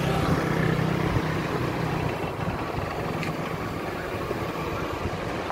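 Pickup truck engine idling steadily, a little louder in the first two seconds.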